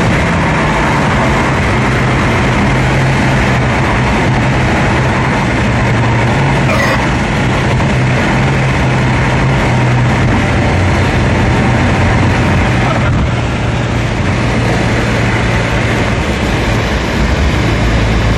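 Infiniti G35 coupe's V6 engine running at a steady high highway speed, heard from inside the cabin over loud road and wind noise. The engine note eases a little about two-thirds of the way through and rises again near the end.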